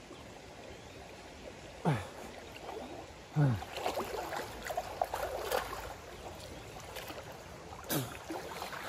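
Stream water flowing steadily while a man wading through it sloshes and splashes, with a few sudden sloshes about two, three and a half and eight seconds in, and gurgling in between.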